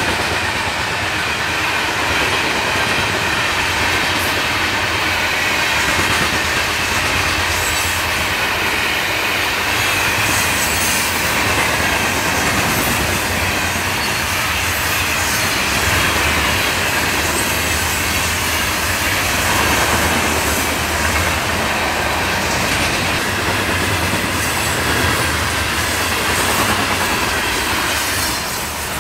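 Florida East Coast Railway freight train's cars rolling past close by: a steady loud rumble and rattle of steel wheels on rail, with scattered clacks of wheels over rail joints.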